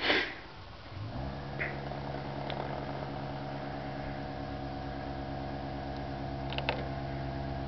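A short burst of noise, then the air-ride hitch's air compressor starts about a second in and runs with a steady buzzing hum, pumping up the hitch's air bag.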